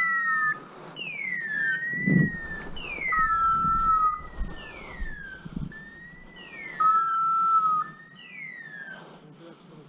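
Hunting dog's beeper collar sounding its repeating point signal: an electronic screech that slides down and then holds a short level tone, about every two to three seconds. It signals that the dog is standing still on point.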